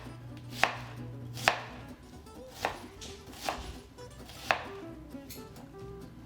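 Kitchen knife coarsely chopping a large yellow onion on a cutting board: five sharp knocks about a second apart, stopping a little after the middle.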